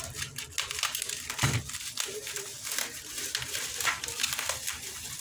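Plastic parcel packaging crinkling and crackling as it is handled and torn open by hand, in quick irregular bursts.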